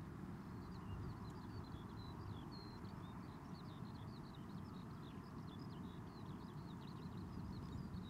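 A small songbird singing a fast, continuous run of short, high, varied notes, starting about half a second in, over a low steady rumble of wind on the microphone.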